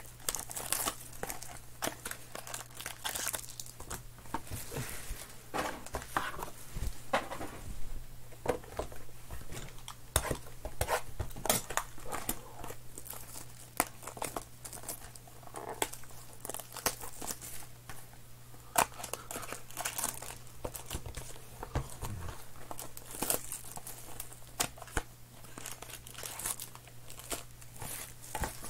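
Foil-wrapped Panini Absolute basketball card packs crinkling and rustling as they are pulled out of their boxes and handled, with irregular short crackles, clicks and tearing sounds. A faint steady hum sits underneath.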